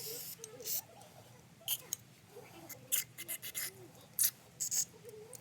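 A string of short, sharp hissing bursts and light clicks, about ten in all, from hands-on work on a small engine's carburettor.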